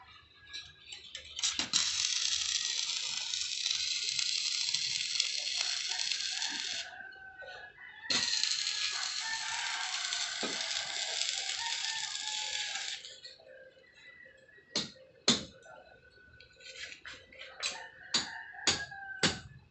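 Arc welding on steel trusses: two runs of steady crackling sizzle, each about five seconds long with a short break between. They are followed by a series of sharp metal taps and clicks.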